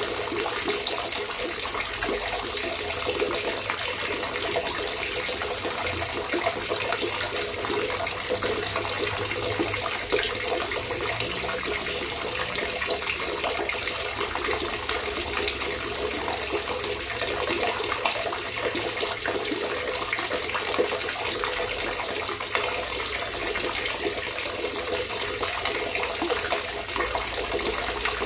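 Water trickling and gurgling in a steady, continuous flow.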